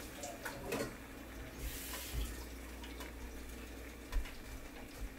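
Kitchen tap running as asparagus is rinsed under it, with a few faint clicks.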